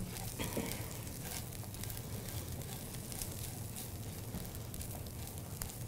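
Diced bacon, peppers and onion sizzling in a skillet with small crackles as a spatula stirs them.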